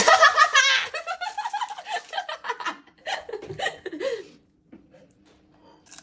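A young girl laughing and squealing loudly in a high, wavering voice, lasting about four seconds.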